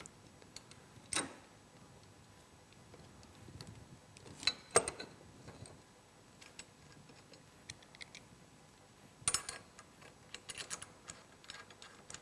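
Scattered light metal clicks and knocks of an aluminum handlebar being set into snowmobile handlebar riser clamps, with a sharper knock about five seconds in and a run of quick clicks near the end.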